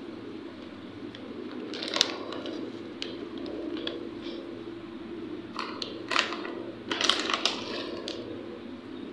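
Kurkure corn snacks crunching in short, crisp crackles: one about two seconds in, then a cluster of several a little past halfway. A steady low hum runs underneath.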